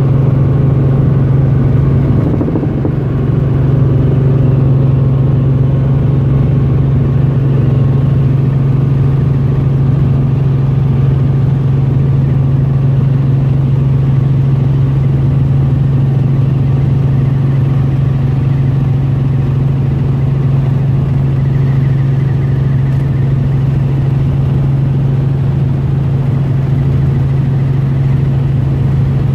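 Helicopter in flight: the engines and rotor make a loud, steady drone with a strong low hum.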